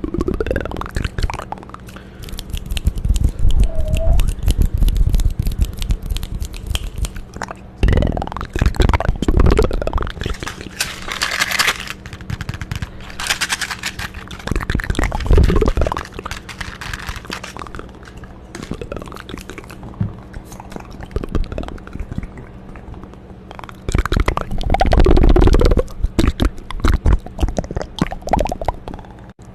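ASMR mouth sounds close to the microphone: rapid wet clicks and smacks mixed with bursts of deep, gurgling rumble. The biggest rumbling bursts come about a quarter of the way in and again near the end.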